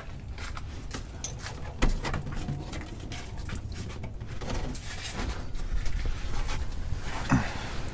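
Scattered knocks and scrapes of work under a car, an oil drain bucket being shuffled into place under the drain plug, over a steady low rumble. The sharpest knock comes about two seconds in.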